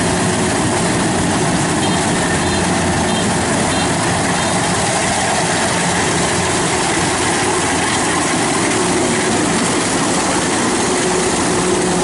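Kubota DC-93 combine harvester running steadily under load as it harvests rice, its diesel engine and cutting and threshing works making a constant, loud mechanical din.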